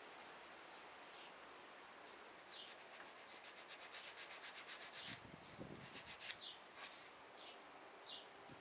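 Faint, quick rubbing strokes on thin wood veneer as hands work a veneer patch, several strokes a second for about two seconds in the middle, then a few scattered scrapes.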